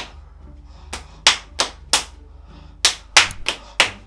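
Sharp hand slaps in two quick sets of four, about three a second with a short pause between the sets. These are the rhythmic fist-into-palm beats counting off rounds of rock-paper-scissors.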